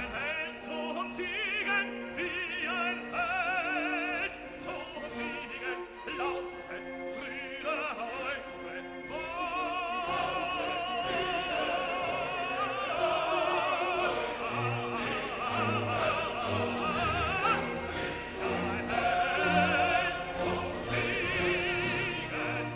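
Background music: a singer with heavy vibrato in an operatic style over an orchestral accompaniment.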